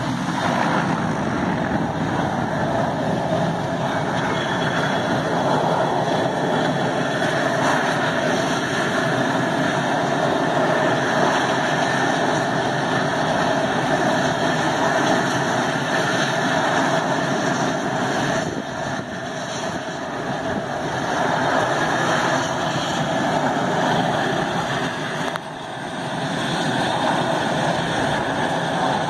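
Engine of a single-engine firefighting plane running on the ground, a loud steady noise that drops briefly about 18 seconds in and again about 25 seconds in.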